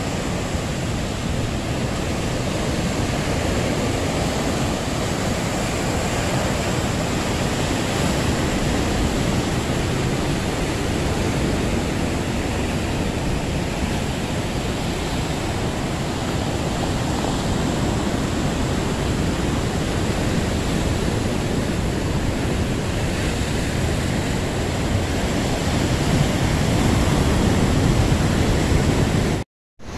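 Surf breaking and washing over a rocky shore: a steady rushing noise with a strong low rumble and wind on the microphone. The sound drops out for a moment near the end.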